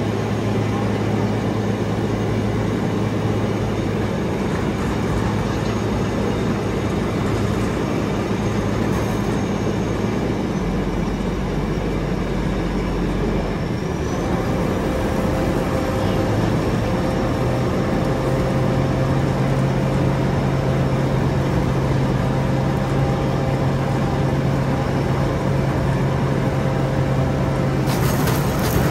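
Somboon Pattana combine harvester's engine running steadily, its pitch rising slightly about halfway through.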